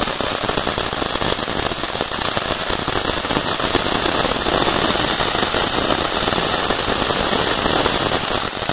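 Ground fountain firework spraying sparks: a steady, dense hissing crackle of rapid pops.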